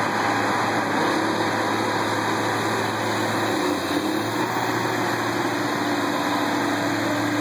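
Diesel engine of a Challenger MT765C rubber-track tractor running steadily under heavy load as it pulls a weight-transfer sled, with a low, even drone.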